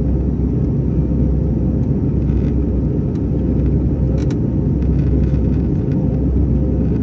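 Airbus A320 airliner cabin in flight: a steady, even low rumble of the engines and airflow with a faint steady hum over it. A few faint clicks come through, the clearest about four seconds in.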